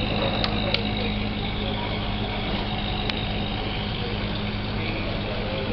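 A steady, unchanging mechanical hum, like a running engine, with a low drone and an even background rush. A few sharp light clicks come about half a second in and again around three seconds.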